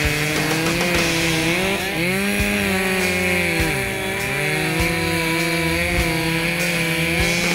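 Two-stroke chainsaws running at full throttle while cutting through logs. The engine pitch dips and recovers a couple of times as the saws load up in the cut, with rock music playing over them.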